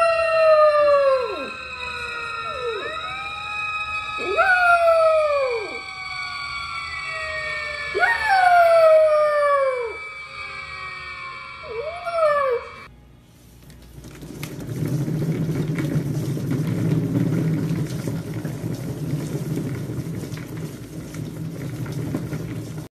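Puppy howling: several long howls, each falling in pitch, over a steady high tone. After a brief lull about 13 seconds in, a cat exercise wheel rumbles steadily as a cat runs in it.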